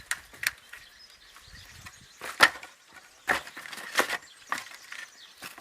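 Clay roof tiles knocking and clinking against each other as they are handled and stacked: about six irregular sharp knocks, the loudest about two and a half seconds in.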